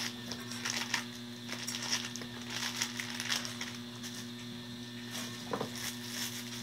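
Clear plastic packaging bags crinkling and rustling in irregular bursts as small parts are handled and unwrapped, over a steady low electrical hum.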